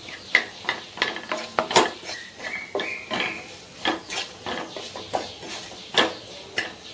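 Wooden spatula stirring mashed boiled potato into fried onion masala in a nonstick kadai, with irregular scrapes and knocks against the pan.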